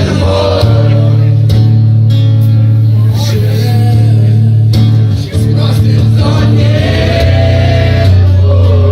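Live acoustic song: a male voice singing a melody over guitar accompaniment, loud, with a heavy booming low end.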